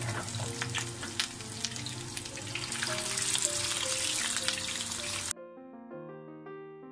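Beef chapli kababs shallow-frying in hot ghee: steady sizzling and crackling with sharp pops, over soft piano music. The sizzle cuts off suddenly about five seconds in, leaving only the piano.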